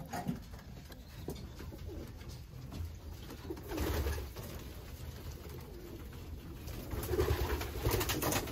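Homing pigeons cooing in a loft, a low call about four seconds in and more cooing from about seven seconds on.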